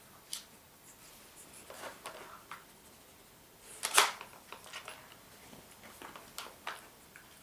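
Scattered clicks and knocks of the Dog Brick puzzle toy's pieces as a dog works at them, with one louder knock about four seconds in.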